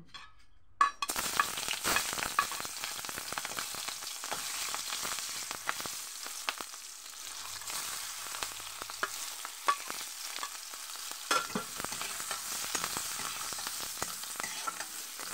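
Hot oil sizzling in an aluminium kadhai as green chillies and other pieces fry, starting suddenly about a second in. The hiss then runs on steadily, with scattered crackles and the clicks and scrapes of a metal spatula stirring against the pan.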